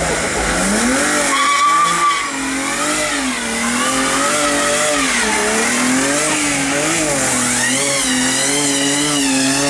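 BMW 3 Series coupe doing a burnout. The engine revs up in the first second and is then held high, its pitch wavering up and down while the spinning rear tyres hiss and squeal. The revs drop sharply at the very end.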